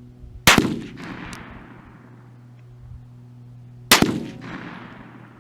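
Two AR-15 rifle shots firing tracer rounds, about three and a half seconds apart, each followed by a fading echo. A steady low hum runs underneath.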